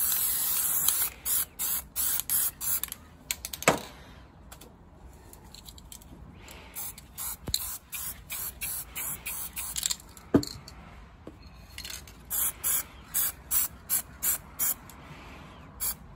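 Aerosol spray paint can spraying: one continuous hiss for about a second, then clusters of short, irregular squirts, with a couple of sharp clicks. The squirts lay down paint circles on the water for a marbled hydro-dip pattern.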